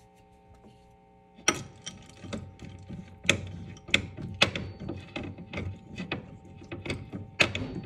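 Metal spoon stirring chocolate chips in a glass bowl: irregular clinks and scrapes against the glass, starting about a second and a half in.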